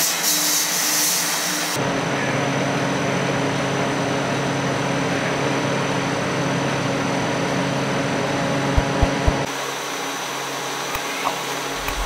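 Foam production line machinery running with a steady hum, its character changing abruptly about two seconds in and again near ten seconds. A few short low thumps just before the second change.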